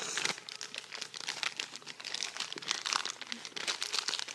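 Plastic packaging bag crinkling and crackling as it is handled and pulled open, a dense run of irregular crackles.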